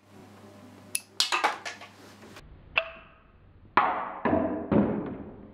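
Sharp knocks and clacks of magnet-tipped aluminium darts fired from a neodymium magnet launcher and striking a board target. There is a quick cluster of knocks just after a second in, a single ringing knock, and then three louder knocks near the end.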